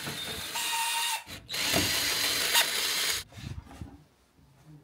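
Cordless drill-driver running in two bursts of about a second and a half each, with a short pause between them, its motor giving a steady whine.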